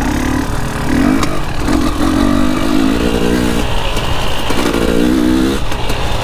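KTM 300 EXC two-stroke dirt bike engine under way, revving up and down in several throttle bursts, its pitch rising and falling.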